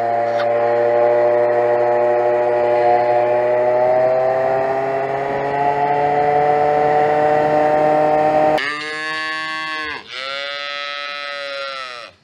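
Two-stroke automatic scooter engine running hard under acceleration, a steady drone slowly rising in pitch. About eight and a half seconds in it cuts off sharply to two long calf moos, one after the other.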